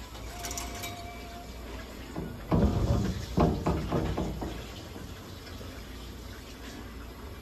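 Steady hiss of a nebulizer blowing mist into an oxygen cage, for inhalation therapy. A run of louder, irregular knocks and rustles sounds about two and a half seconds in and lasts about two seconds.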